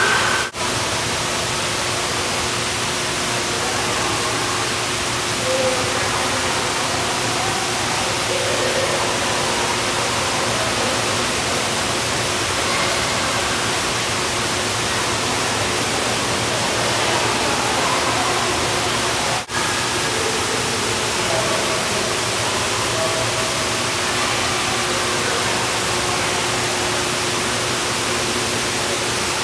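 Steady rush of water pouring from a large umbrella-shaped pool fountain, with a faint steady hum underneath. The sound briefly drops out twice: just after the start and about two-thirds of the way through.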